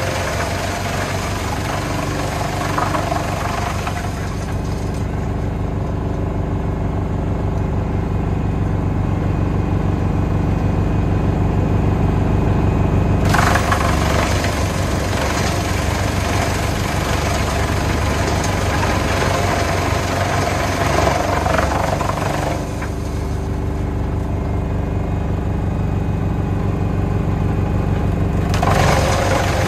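Junkkari HJ500 wood chipper driven by a Valtra T190 tractor, running at a steady speed, with louder, noisier spells of chipping as the crane feeds logs in: at the start, for about nine seconds in the middle, and again near the end.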